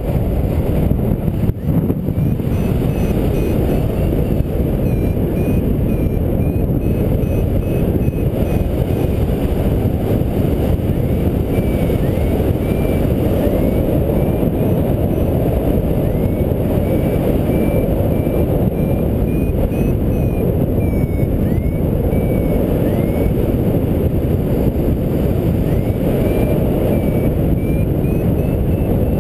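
Steady rush of airflow wind on the microphone during paraglider flight, with a variometer's faint beeping running through it in short repeated tones that glide upward in places, the sound it makes when the glider is in rising air.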